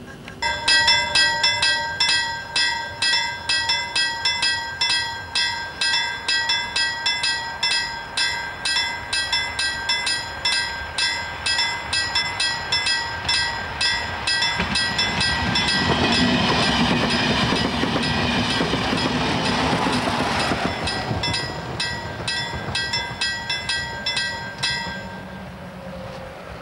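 Level-crossing warning bell ringing in rapid, evenly spaced strokes, about two to three a second, with the crossing activated for an approaching train. Around the middle an X2 high-speed electric multiple-unit train rushes past for about six seconds. The bell stops shortly before the end.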